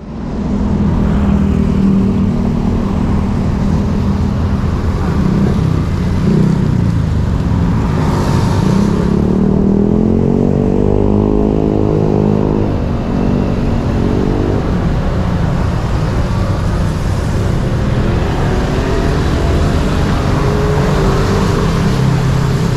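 Busy city road traffic: car and motorcycle engines running and passing, with one engine revving up, rising in pitch about ten seconds in. A brief hiss comes about eight seconds in.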